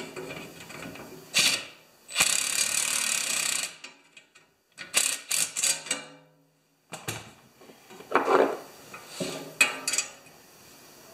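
Ratcheting wrench clicking in short runs as the nuts on the snowblower auger's shoe bolts are tightened, with a longer rasping run a couple of seconds in.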